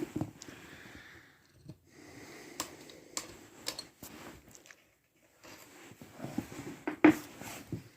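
Carburetor parts and tools being handled on a work surface: a few sharp clicks and knocks of metal, the loudest about seven seconds in, with a soft hiss between them.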